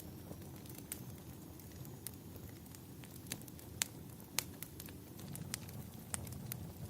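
Wood fire crackling: scattered sharp pops and snaps, a few louder ones around the middle, over a low steady rumble.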